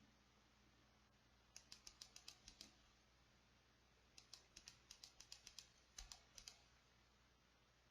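Faint rapid clicking in three short runs, about seven clicks a second, with pauses between runs.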